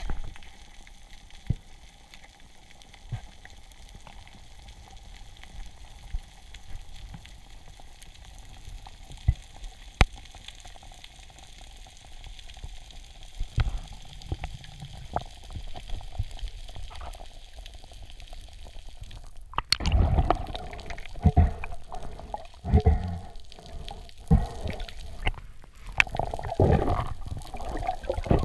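Muffled underwater noise picked up inside a camera housing: a low water hiss with scattered clicks and knocks. About twenty seconds in there is a sharp crack, then louder, busier knocking and bubbling as a speared fish is handled on the spear.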